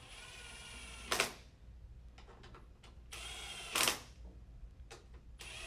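Small cordless power tool with a 12 mm socket driving bolts into a CVT transmission case: twice a steady motor whine for about a second, each ending in a short loud burst as the bolt runs down and seats.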